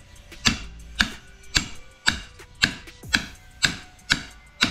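Hammer blows on steel, about two a second, each with a short metallic ring. The hammer is knocking apart a Jeep Commander front strut that is seized in its lower mounting bracket.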